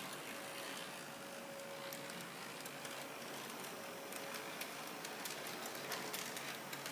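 H0-scale model Peter Witt trams running on the track: a faint steady motor hum under light clicking of wheels over rail joints and points, the clicks coming thicker in the second half.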